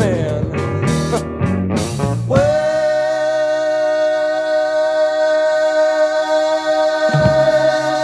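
Song with singing playing; about two seconds in, one long note is held steadily over low accompaniment.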